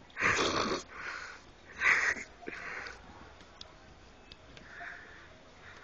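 A man huffing forceful, noisy breaths in short bursts, as if straining under effort. The two loudest come right at the start and about two seconds in, with weaker ones between and a faint one near the end.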